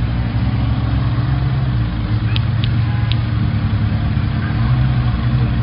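Car engine idling steadily with a low hum. Three short, high clicks come a little over two seconds in.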